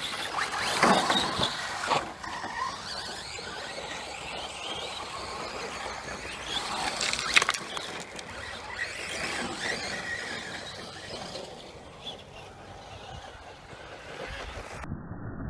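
Brushless electric RC cars running on a dirt track: a high-pitched motor whine and squeal that rises and falls as they pass. It is loudest about a second in and again about seven seconds in.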